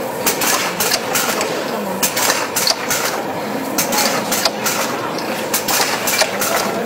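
Automatic aluminium tube filling and sealing machine running: a steady mechanical clatter of many quick, irregular clicks and knocks.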